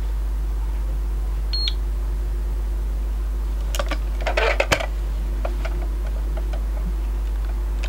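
One short high beep from an ANRI-01-02 Sosna dosimeter. A couple of seconds later comes a burst of handling clicks and rustling as the lens and the dosimeter are moved on a cloth, then a few faint clicks. A steady low hum runs underneath.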